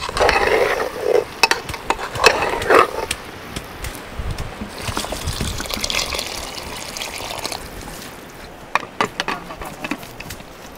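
Liquid being poured, an even splashing pour of about three seconds in the middle, after a few short loud noises in the first seconds and followed by scattered clicks and knocks.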